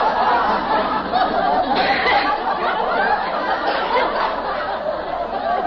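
Audience laughing, a sustained wave of laughter from many people.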